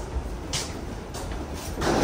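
Footsteps walking along an airport jet bridge floor, a step roughly every half second to two-thirds of a second, over a steady low rumble. A louder burst of noise comes near the end.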